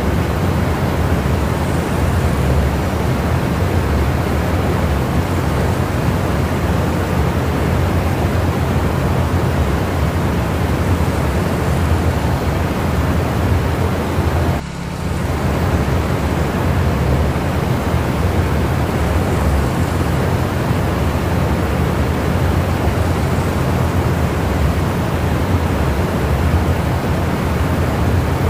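Steady, loud machine noise: something motor-driven running without a break, a broad hiss over a low hum, dropping out briefly about halfway through.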